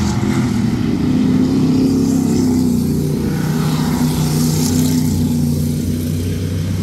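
V8 stock cars' engines running hard on the track during a race, a steady, loud engine drone that shifts slightly in pitch as the cars go round.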